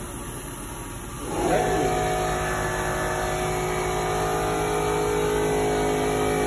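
Heidelberg folding machine's motor starting up about a second in, pitch rising briefly, then running with a steady multi-tone mechanical hum.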